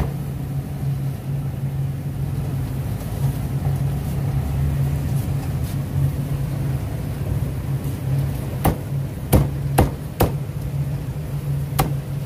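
Meat cleaver chopping roasted duck on a chopping block. One sharp chop at the start, then a quick run of about five chops from around eight and a half seconds in, over a steady low hum.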